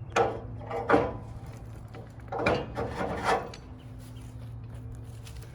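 Wooden knocks and scraping as heavy timber is handled at the sawmill, in several short bursts about a second in and again around the middle, over a steady low engine hum.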